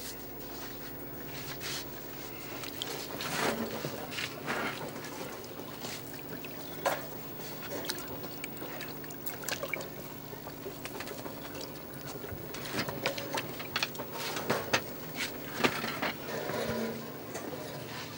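Water sloshing and splashing in a clay pot as a hand stirs inside it, with scattered soft knocks against the pot. A steady low hum runs underneath.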